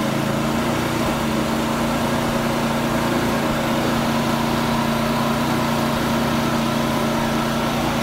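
An engine running steadily, a constant even hum that does not change in pitch or level.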